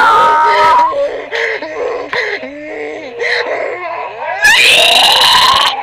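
A child crying and wailing in a tantrum, with a loud, high, drawn-out scream near the end.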